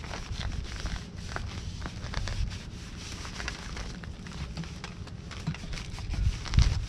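Sandpaper scratching and rubbing over a steel exhaust pipe in quick, uneven hand strokes, sanding through oily dirt and buildup. A low thump comes near the end.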